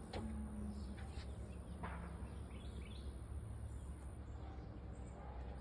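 Outdoor yard ambience: a few birds chirping now and then over a steady low rumble, with a thin high steady tone that stops about four seconds in.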